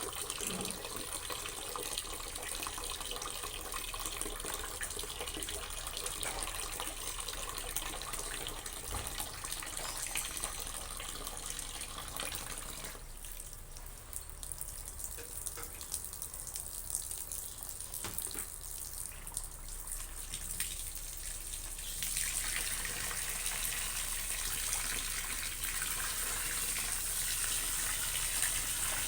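Water running from a tap into a basin while laundry is washed by hand. The flow eases off about halfway through and comes back louder several seconds later.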